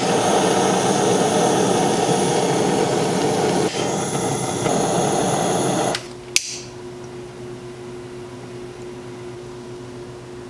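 Butane culinary torch burning with a steady hiss for about six seconds, dipping briefly midway, then shut off. A single sharp click follows, a long utility lighter being sparked, and after it only a faint steady hum.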